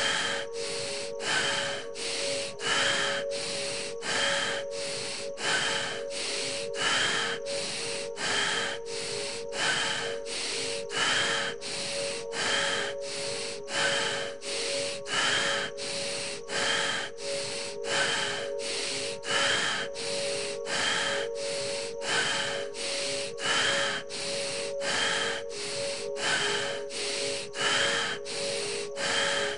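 Deep, fast, rasping breaths in a quick, even rhythm, about one in-and-out breath every second and a half, as in the hard-breathing stage of a guided breathing meditation. A steady musical drone runs under the breathing.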